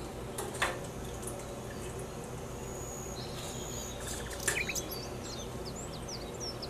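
Metal tongs clicking against a stainless saucepan as fried chicken wings are lifted out of the oil, over a faint steady hiss. Near the end a bird chirps several times.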